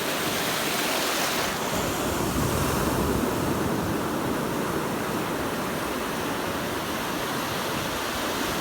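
Strong ocean surf breaking and washing up the beach: a steady rush of water recorded close up on a phone.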